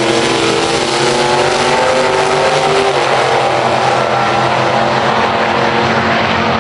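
Two gasser drag cars racing down a drag strip at full throttle, their engines climbing in pitch for about three seconds and then dropping as they pull away down the track.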